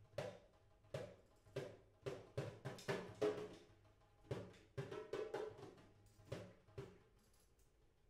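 Drums struck in loose, irregular hits with quick flurries between them, each hit leaving a short pitched ring.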